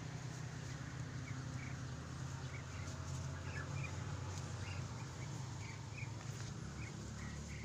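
Birds chirping in many short, high notes scattered throughout, over a steady low rumble.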